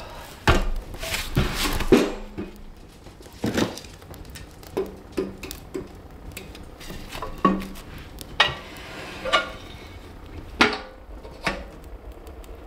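Firewood being loaded into a wood stove's firebox: irregular knocks and clunks of logs against the metal stove, some ringing briefly, then the stove door is shut.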